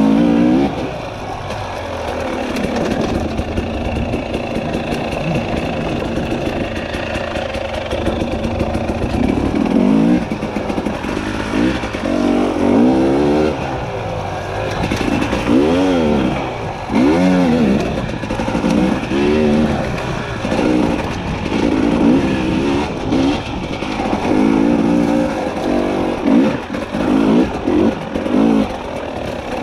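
Dirt bike engine running under throttle, revving up and falling back over and over. Its pitch rises and drops in quick arcs every second or two, and runs steadier for the first several seconds.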